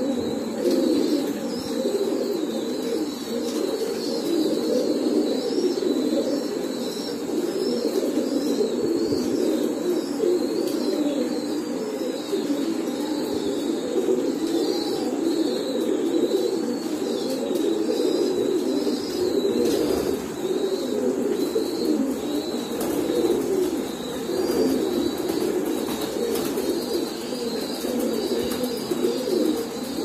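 A flock of domestic pigeons cooing together in a continuous overlapping drone, with faint high chirping over it.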